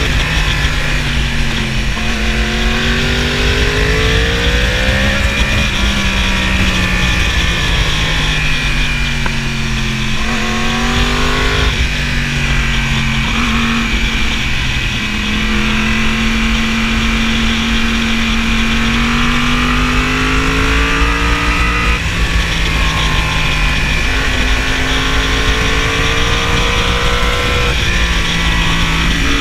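2015 Yamaha R1's 998 cc crossplane inline-four running at riding speed, its pitch rising and falling repeatedly, with several sudden drops, under a steady rush of wind.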